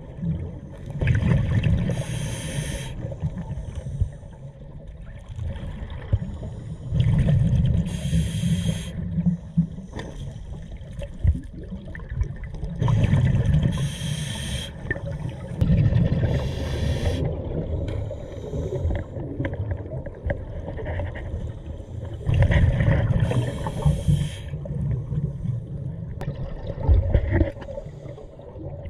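A scuba diver breathing through a regulator underwater: the hiss of each inhalation and bubbling exhalations, repeating every few seconds over several breath cycles.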